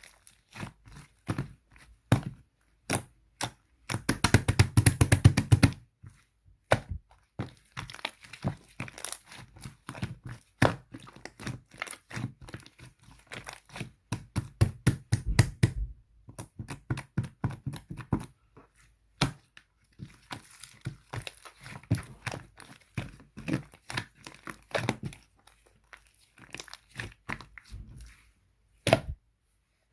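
Purple slime mixed with small round add-ins being squeezed and stretched by hand, giving many sharp clicks, pops and crackles. A dense run of rapid crackling comes about four to six seconds in.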